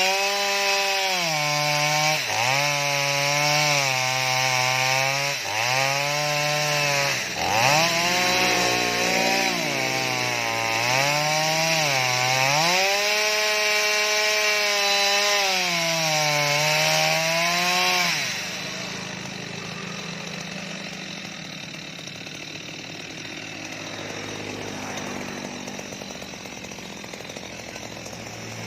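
Stihl MS 230 two-stroke chainsaw cutting into a mango trunk, its engine pitch repeatedly sagging under load in the wood and picking back up. About two-thirds of the way through the saw's note stops, leaving a quieter, unpitched noise.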